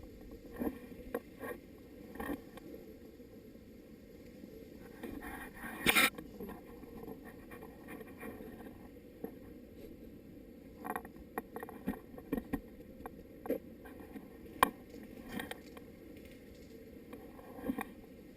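Scattered sharp clicks and knocks over a low background hiss, the loudest about six seconds in, with a quicker run of them in the second half.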